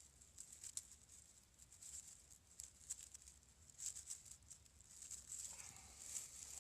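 Faint rustling and small scattered clicks of hands working the spliced fence wire and its wire nuts.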